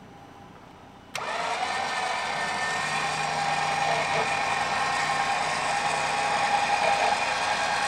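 Xbull 13500 XRS electric winch switching on abruptly about a second in and running steadily, spooling in its synthetic line under a light load.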